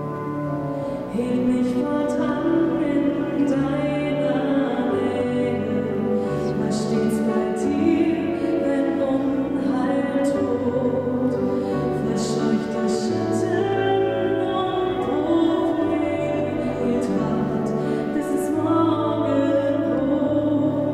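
A slow song: a singer's voice over long-held chords with a moving bass line.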